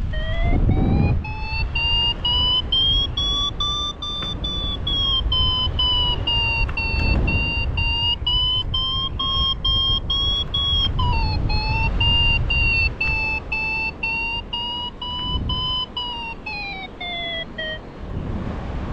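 Paragliding variometer tone. Its pitch rises and falls slowly with the glider's vertical speed, then sinks and stops shortly before the end. Under it, wind buffets the microphone.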